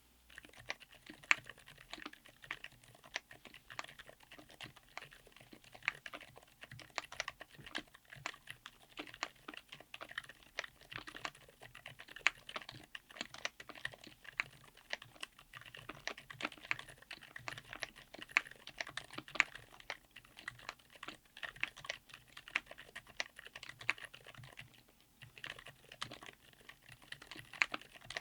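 Continuous typing on a mechanical keyboard fitted with TTC Frozen Silent Bluish White silent tactile switches, in a Tofu60 aluminum case with an FR4 plate: a fast, uneven stream of soft, muted keystrokes with damped bottom-outs.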